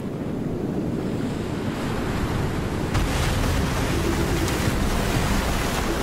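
Ocean waves breaking against rocks: a steady wash of rushing water and spray that grows a little louder about three seconds in.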